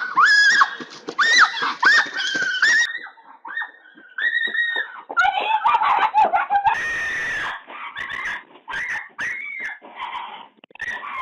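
Raccoons screeching: a rapid series of short, shrill squealing cries, each rising and falling in pitch, one after another.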